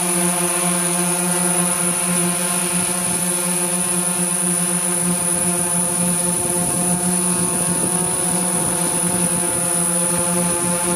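Camera drone's motors and propellers buzzing steadily, a hum held at one pitch with many overtones and a thin high whine above it.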